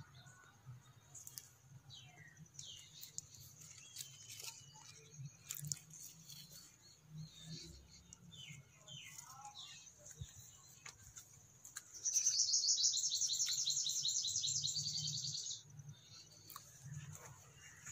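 Small birds chirping outdoors in short, quick falling notes. About twelve seconds in, a loud, rapid trill sets in and runs for about three and a half seconds before stopping abruptly.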